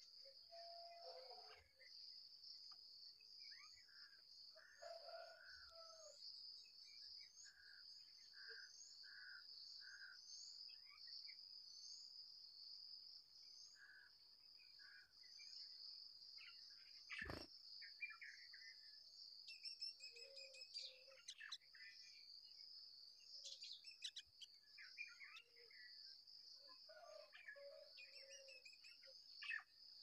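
Faint, steady high-pitched insect chorus under scattered short chirps and calls of small birds, with one sharp click about halfway through.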